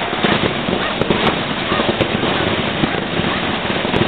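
Fireworks going off: a dense, continuous crackle with several sharp bangs cutting through it.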